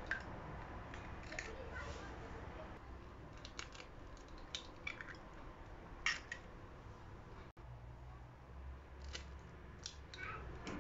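Eggs being cracked against a glass bowl, heard as a scatter of faint, sharp clicks and cracks of shell.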